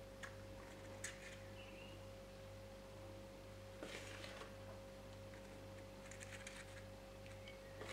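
Faint steady electrical hum with a thin, high whine. Over it come a few soft clicks and scrapes of a metal spoon against the mixing bowl as thick brownie batter is scooped out and dropped into paper liners.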